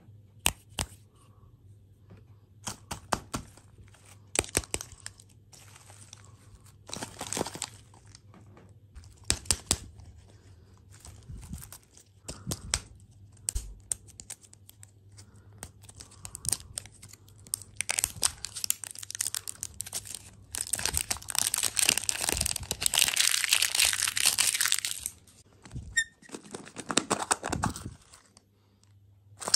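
Foil wrapper of a toy lollipop egg being picked at, crinkled and torn off by hand, with scattered short clicks and rustles and a longer stretch of steady crinkling and tearing about two-thirds of the way in. Near the end the plastic capsule inside is opened.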